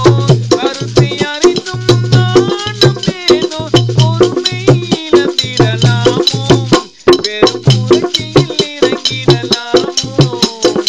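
A Tamil song sung to a steady low drum beat and many sharp rattling percussion strikes, with a brief break about seven seconds in.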